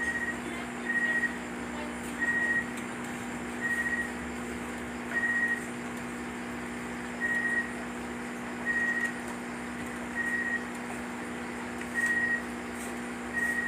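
A short, high single-pitched electronic beep repeating about every one and a half seconds, slightly unevenly spaced, over a steady low hum.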